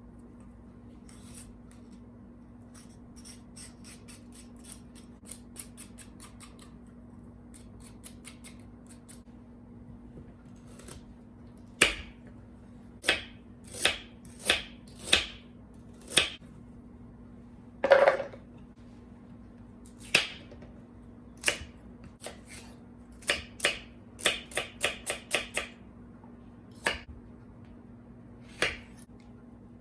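Kitchen knife chopping on a cutting board: light, quick taps at first, then loud, sharp, separate strikes, with a brief flurry of several a second near the end.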